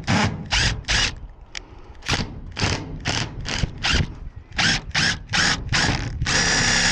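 Power drill driving a screw into a metal frame: about a dozen short bursts on the trigger, then a steady run starting about six seconds in.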